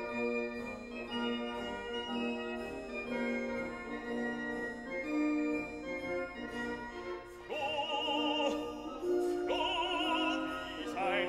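Background music: held organ-like keyboard chords, joined about two-thirds of the way through by an operatic voice singing with a wide vibrato.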